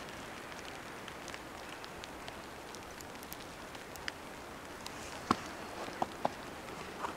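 Quiet outdoor background noise: a steady hiss with scattered light ticks and taps, a few sharper ones in the second half.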